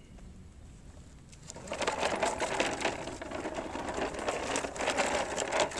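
A child's plastic push toy with wheels rattling and clattering as it is pushed over the ground. The sound starts about a second and a half in and goes on as a dense, fast run of clicks.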